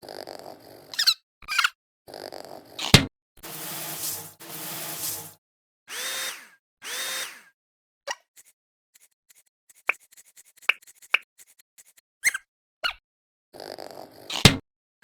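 A quick string of cartoon sound effects: sharp hits, noisy swishes, two short swooping tones and a scatter of small clicks and pops.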